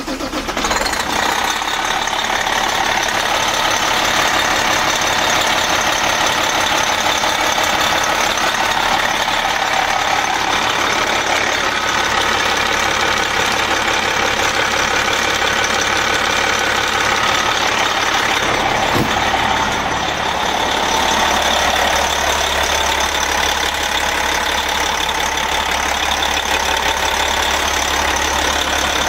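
Detroit Diesel Series 60 inline-six diesel in an MCI coach running at idle just after starting, a steady engine sound with a shift in its low note about two-thirds of the way through.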